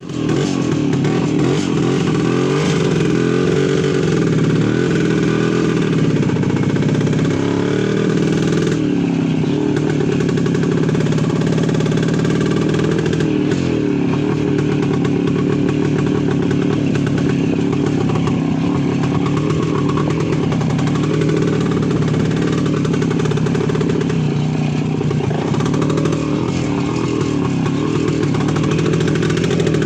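Voskhod 3M motorcycle's single-cylinder two-stroke engine running steadily, its speed rising and falling a little now and then.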